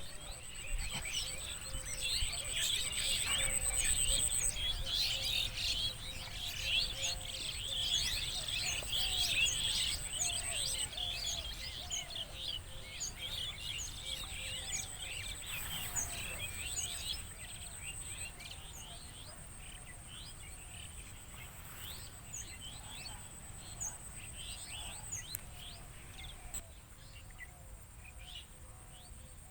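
A chorus of many small birds chirping and twittering, busiest in the first half and thinning toward the end, over a steady high-pitched whine and a low outdoor rumble.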